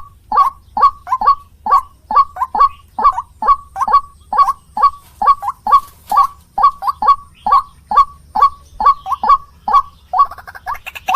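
White-breasted waterhen (ruak-ruak) giving its repetitive croaking 'kru-ak' call: short notes about two to three a second, often in pairs. Near the end the calls come faster and harsher.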